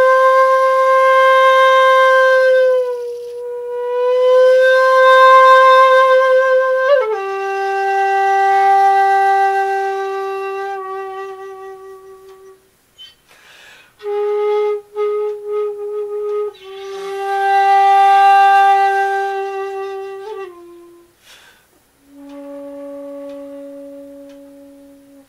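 Background music: a solo flute playing slow, long-held notes with a slight vibrato, in a few phrases separated by short breaths. The phrases step down in pitch, and the last, lowest note near the end is quieter.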